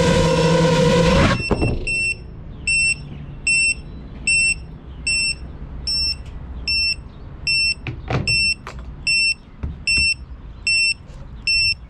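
A steady droning sound cuts off abruptly about a second in. Then the FPV quadcopter's piezo buzzer, its lost-model beeper, sounds short high beeps about every 0.7 seconds while the drone sits disarmed after landing. A few sharp knocks come midway through.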